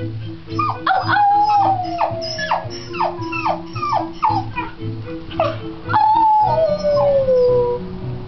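A puppy howling along to music: a run of short falling yips and long, drawn-out falling howls, over background music with a steady beat.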